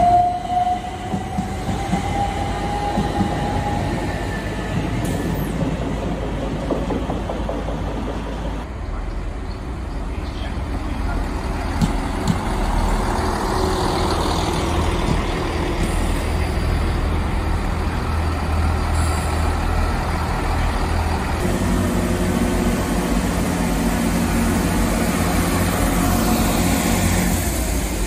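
A Class 377 Electrostar electric unit pulls away, its traction motor whine rising in pitch and fading within the first few seconds. Then a GWR Class 165/166 Turbo diesel multiple unit runs under a steady low rumble, its engine note growing stronger about two-thirds of the way through as it moves along the platform.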